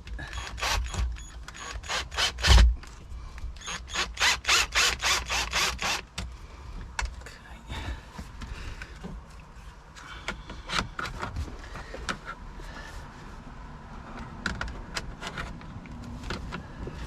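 Plastic trim and a cable being worked through a hole: a run of rapid clicking and scraping strokes with one loud knock about two and a half seconds in, then sparser, quieter clicks and rustles.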